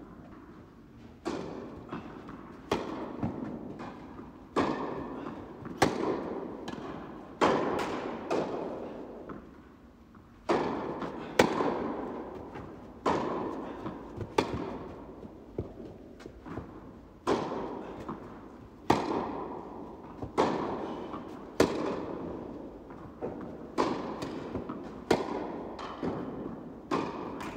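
Tennis rally: rackets striking the ball and the ball bouncing on the court, a sharp pop every second or so, each ringing on in the reverberant indoor tennis hall. There is a short lull about ten seconds in.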